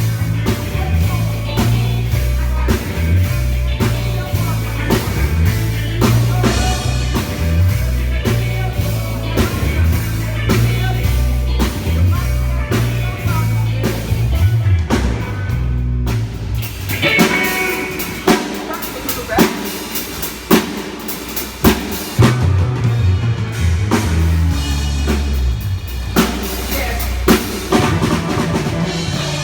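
A band playing live: a drum kit beat with bass and guitar. The bass line drops out for several seconds a little past halfway, leaving drums and guitar, then comes back in.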